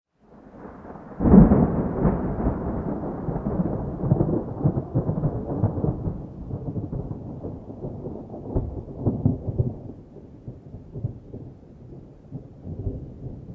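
A peal of thunder: a sharp crack about a second in, then a long rolling rumble that slowly fades.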